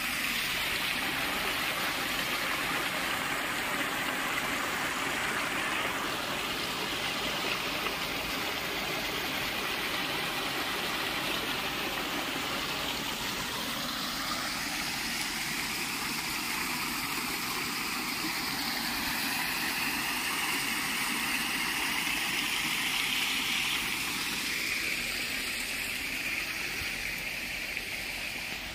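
Shallow water pouring over the lip of a low concrete dam and splashing down its face into a pool: a steady rushing sound.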